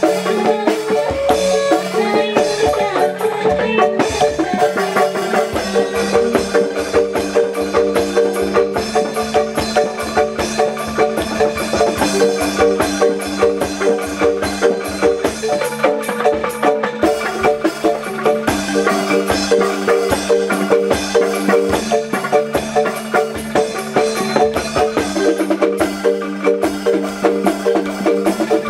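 Bamboo percussion ensemble playing: struck bamboo tubes ringing out a quick, busy repeating melody over a steady pulse, with drums.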